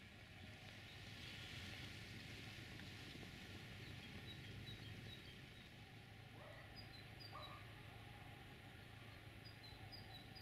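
Faint outdoor ambience with a steady low hum, and small birds chirping in short, high notes repeated from about four seconds in.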